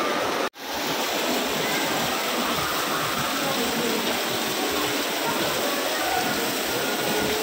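Steady rush of water pouring down an artificial rock-face waterfall, broken by a brief cut-out about half a second in.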